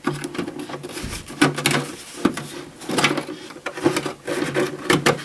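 Thin plastic cockpit tub crackling, clicking and scraping against the edges of the fiberglass fuselage's cockpit opening as it is pressed down into place by hand: a run of irregular sharp clicks, several a second.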